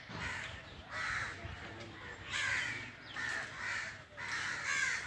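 Crows cawing over and over, a harsh call coming about once or twice a second.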